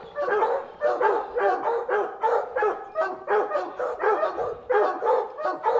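Several hunting hounds baying at the foot of a tree, with rapid, overlapping barks several times a second: the bay of hounds that have a mountain lion treed.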